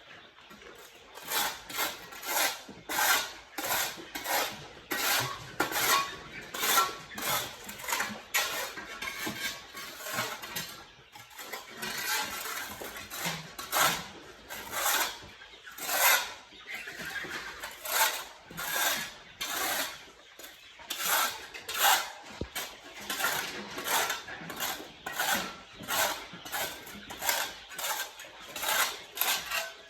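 Rhythmic scraping strokes, about two a second, starting about a second in, with a short break near the middle.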